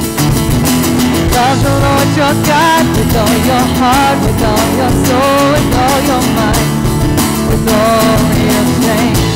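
Live worship band: a woman sings the lead melody over strummed acoustic guitar, electric guitar and a hand-played djembe.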